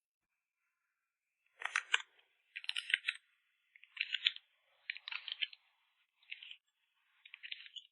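Photocard packing materials crinkling and rustling as they are handled, in about six short crackly bursts starting about one and a half seconds in.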